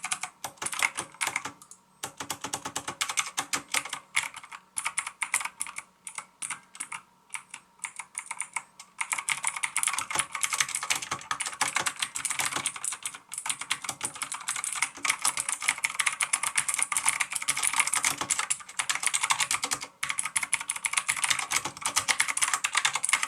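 Typing on a Maxtill TRON G100K mechanical keyboard with clicky blue switches: sharp keystroke clicks, in short runs with pauses at first, then fast, almost continuous typing from about nine seconds in, stopping abruptly at the end.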